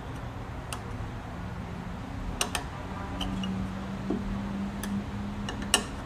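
Scattered light metallic clicks and taps of small parts being handled and set against the needle plate of a Singer 503A sewing machine, a double click about two and a half seconds in and the sharpest click near the end.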